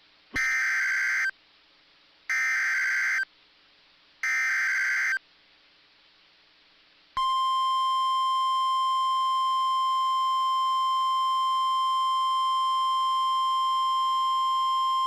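NOAA Weather Radio emergency alert header: three one-second bursts of SAME data tones, evenly spaced, then from about seven seconds in the steady 1050 Hz warning alarm tone. Together they announce a new warning about to be read.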